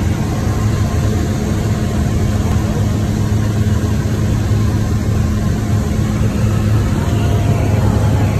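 Steady drone of a skydiving plane's engine and propeller heard from inside the packed cabin, a constant low hum over loud rushing noise.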